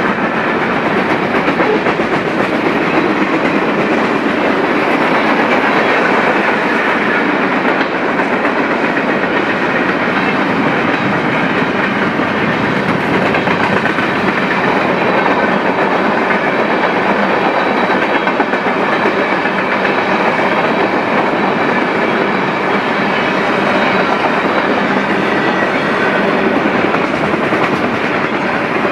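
Freight train cars rolling past on the rails, a loud, steady rumble and clatter of steel wheels on track.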